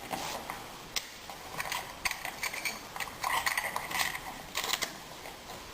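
A foil-wrapped key held in an impressioning clamp being pushed into and worked inside a Keso 2000 dimple-pin lock cylinder to take pin marks in the foil: irregular small metallic clicks and scrapes, louder bursts of scraping around three to five seconds in.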